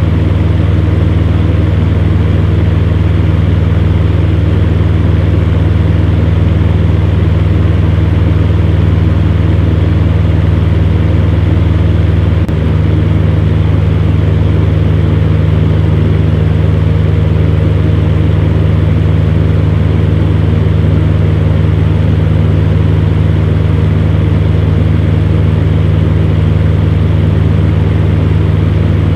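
Electric fan heater running steadily: a constant low motor hum under an even rush of blown air.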